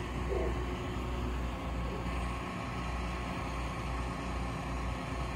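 Mobile crane's diesel engine running steadily while the crane holds and swings a suspended load, with a faint steady whine over its low drone.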